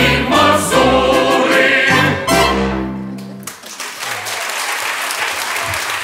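Mixed choir and orchestra singing and playing the last bars of a polonaise, ending on a held final chord about three and a half seconds in. The audience then breaks into steady applause.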